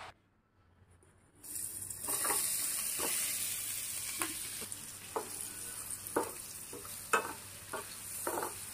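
Spice-coated paneer cubes sizzling in hot oil in a frying pan; the sizzle starts suddenly about a second and a half in. A spatula scrapes and knocks against the pan about once a second as the cubes are stirred.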